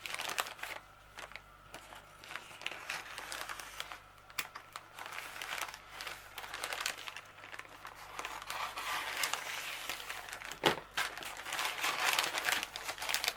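Plastic non-padded mailing bag being handled and opened, with irregular crinkling and rustling and one sharp click a little after ten seconds in.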